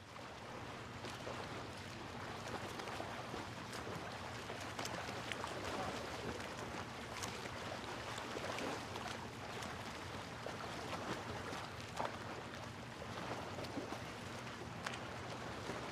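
Waves washing on a beach: a steady, quiet wash of surf noise with faint scattered ticks and a low hum underneath.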